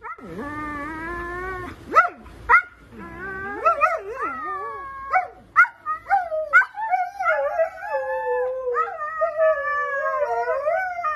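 Two huskies "talking" back at each other in long, wavering, howl-like calls, broken by a few short sharp yips, as they squabble.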